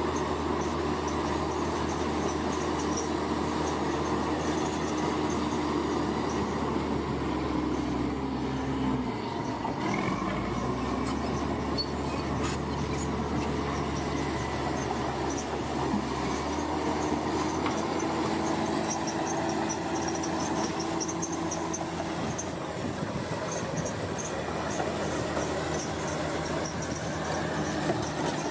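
Crawler bulldozer working: its diesel engine runs under load with a steady metallic squeal from the tracks over it. The engine note drops about nine seconds in and climbs again about seventeen seconds in.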